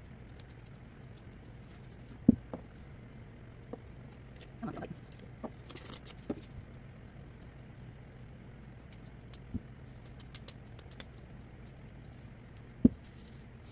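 Knocks and taps of small objects being handled and set down on a work surface, the loudest about two seconds in and near the end, with a brief rustle around the middle, over a steady low hum.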